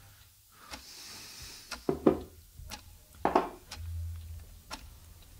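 A wall clock ticking about once a second, over the crinkle of aluminium foil and handling of a steel tiffin box as food is unwrapped. The handling is loudest just after two seconds in and again a little past three seconds.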